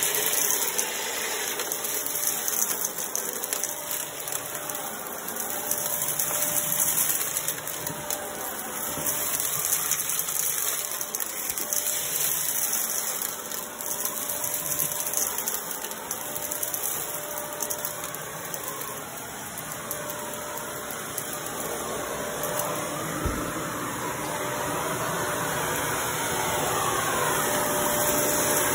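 Upright vacuum cleaner running over carpet with a steady rushing of suction, while small debris such as pom-poms, sequins and crumbs rattles and clicks as it is sucked up the nozzle.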